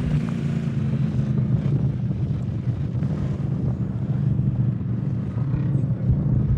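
Off-road race vehicle's engine running at a steady speed, holding an even pitch, with wind buffeting the microphone.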